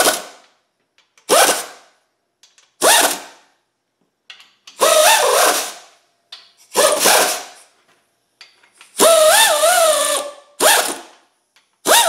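A 3/8-inch pneumatic air ratchet running in about seven short bursts, a whirring whine that wavers in pitch as each main bearing cap bolt snugs down. This is the first torque pass of about 30 foot-pounds on a small-block Chevy crankshaft's main caps.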